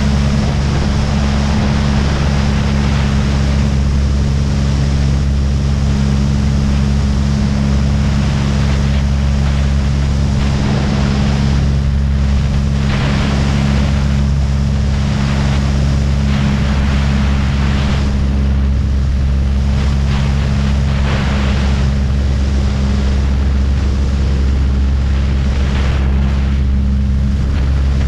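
Aircraft engine running steadily at constant power, with a loud rush of wind over it that swells and fades every few seconds.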